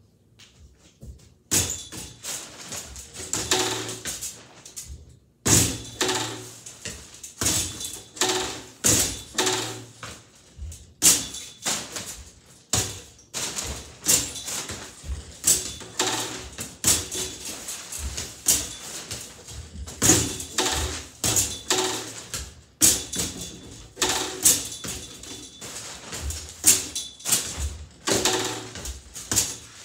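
Mini basketballs thudding repeatedly against the backboard, rims and frame of an indoor arcade basketball game during rapid shooting, with music playing throughout.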